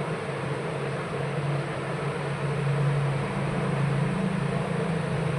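Steady mechanical hum with an even hiss underneath, with no distinct clicks or other events.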